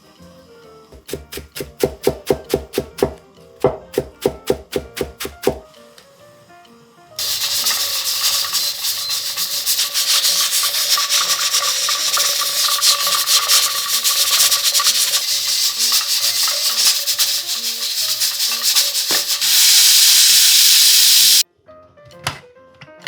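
Kitchen work over background music: a run of quick, even knocks in the first few seconds, then a loud steady hiss that starts suddenly, gets louder near the end and cuts off abruptly.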